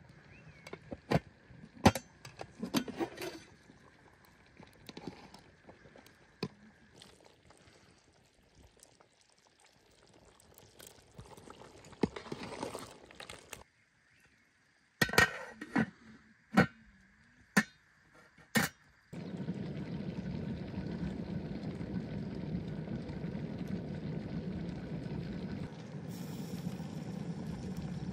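A metal utensil clinking against a steel cooking pot and liquid sloshing as lamb broth is worked over a wood fire, with several sharp clinks. The last nine seconds or so hold a steady rushing noise.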